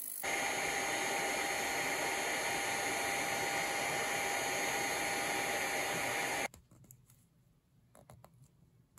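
A hot air gun with a flat nozzle blows steadily: a loud rush of air with a steady whine, warming a fountain pen's grip section so that it can be unscrewed. It cuts off suddenly about six and a half seconds in, and faint small clicks of the pen being handled follow.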